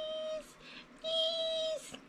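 A woman's voice holding two long sung notes at the same steady pitch, the second starting about a second in.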